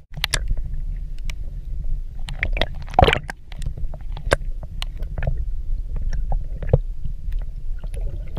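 Underwater sound picked up through a camera's housing: a steady low rumble of moving water, with scattered sharp clicks and pops, the loudest about three seconds in.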